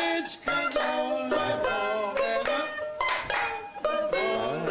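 Banjo being played: a steady run of plucked and strummed notes and chords with a bright, ringing tone.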